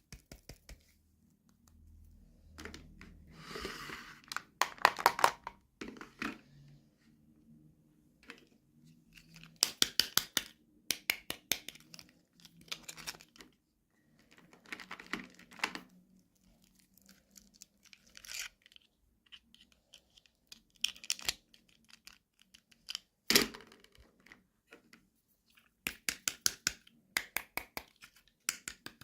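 Toy packaging being torn open and crinkled by hand: repeated bursts of crackling and tearing with short pauses between them.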